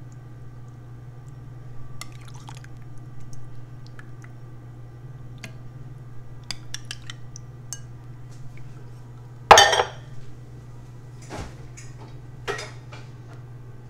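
Small clicks and taps of a plastic spoon and jelly cubes against a glass serving bowl and dishes, with one louder clatter about nine and a half seconds in, over a steady low hum.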